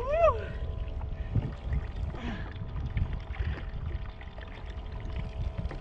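Choppy sea water sloshing and slapping against a kayak hull, with a steady low rumble of wind on the microphone. A brief rising-and-falling call right at the start.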